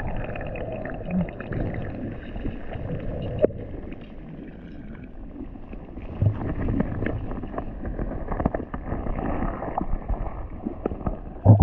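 Muffled underwater sound through a camera's waterproof housing: a low wash of moving water with scattered small clicks and knocks, as a hand brushes through seagrass toward a sea urchin.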